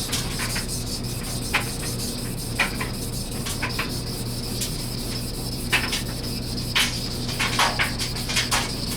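Steel paring-knife blade being ground on a King 1000-grit water stone: steady wet scraping in repeated strokes, about one a second, taking metal off the primary bevel to thin it.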